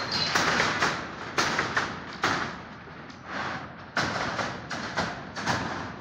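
Footsteps on a steel rebar mat laid over plywood slab formwork: irregular thumps and knocks, a few every second, with a quieter gap about halfway through, over a steady background hiss.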